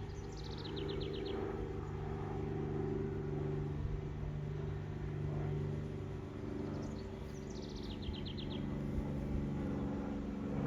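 A songbird sings the same short phrase twice, several seconds apart: a few high notes dropping into a quick run of about six even notes. Under it runs a steady low engine hum.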